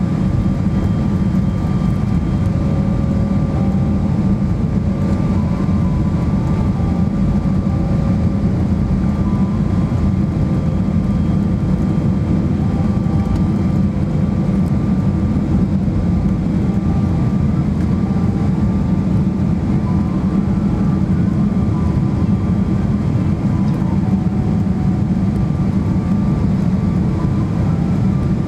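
Steady cabin noise of a Boeing 777-300ER on final approach with flaps extended, heard from a seat over the wing: a low rumble of its GE90 engines and airflow, with a few faint steady whine tones above it.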